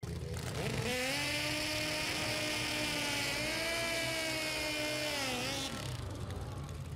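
Pro Stock drag motorcycle engine revved up and held at high revs during a burnout, spinning the rear tire, then dropping back to idle near the end.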